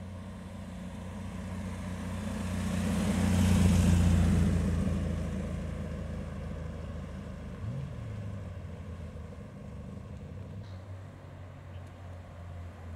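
An MGB roadster's 1.8-litre four-cylinder engine running as the car drives past. It grows louder to a peak about four seconds in, then fades as it pulls away, with a brief rise in pitch around eight seconds. A second car's engine runs low near the end.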